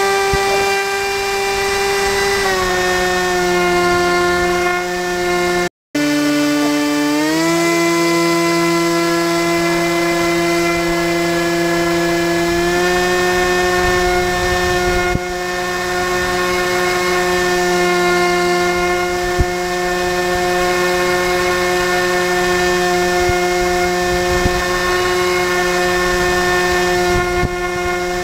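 HobbyKing Swamp Dawg RC airboat's electric motor and air propeller running, a steady high whine heard from on board the boat. The pitch drops about two and a half seconds in, the sound cuts out for a moment near six seconds, then climbs back and steps up a little around twelve seconds before holding steady.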